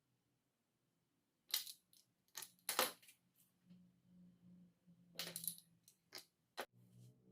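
Kitchenware being handled: a series of sharp clinks and clatters, about six in all.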